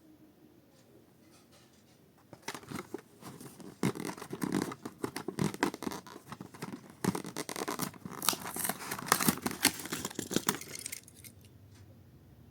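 A diecast toy car's blister pack being opened by hand: stiff plastic crinkling and scratching, with cardboard tearing. It starts about two seconds in and dies away near the end.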